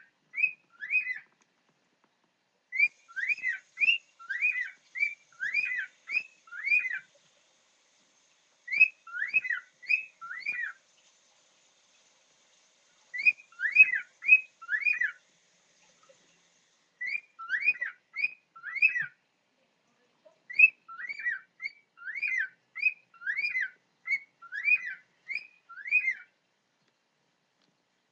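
Pet cockatiel whistling its song: quick, clear notes that dip in pitch, in runs of three to eight with short pauses between, a repeated phrase that some listeners hear as "big burrito".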